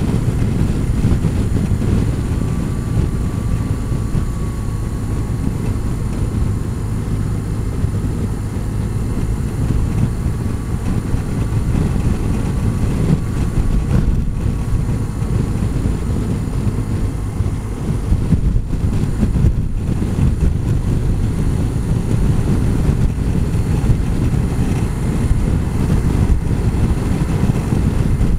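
Touring motorcycle riding at a steady road speed: a low, even engine and road rumble with wind noise on the microphone.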